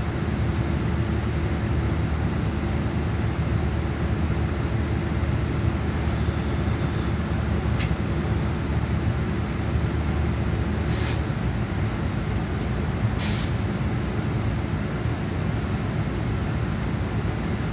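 Greyhound coach's diesel engine idling, a steady low hum heard from inside the passenger cabin, with three short air hisses from the air brake system over the middle of the stretch.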